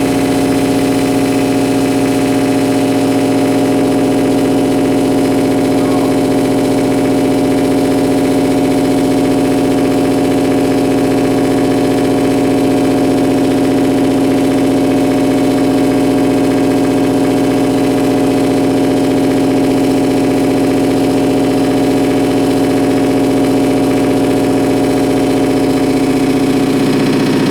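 Amplified electrical buzz from dimmed compact fluorescent bulbs, picked up by exposed guitar cables and unprocessed: a loud, steady, pitched drone with many overtones. The pitch pattern shifts about a second before the end, as a dimmer is turned.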